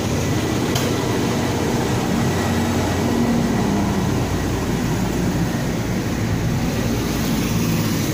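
Toyota Calya's 1200cc dual VVT-i four-cylinder engine idling with a steady hum.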